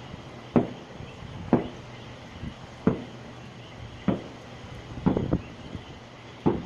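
Fireworks going off: a string of sharp bangs, about one a second and unevenly spaced, seven in all, with a quick pair about five seconds in.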